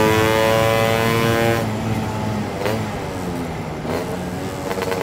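Two-stroke Lambretta scooter engine breathing through a SIP Nordspeed touring exhaust, running hard at high revs. About a second and a half in, the note drops to a lower, quieter run as the revs fall off.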